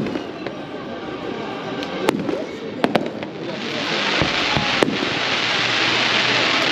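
Fireworks display: several sharp bangs of shells bursting, then from about halfway a loud hissing crackle that builds toward the end as gold sparks shower down.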